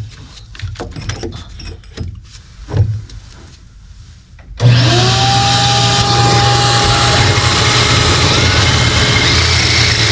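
A few knocks and clicks of handling, then about four and a half seconds in a power drill with a hole saw starts suddenly and runs steadily with a held whine, cutting a hole in the boat's fiberglass.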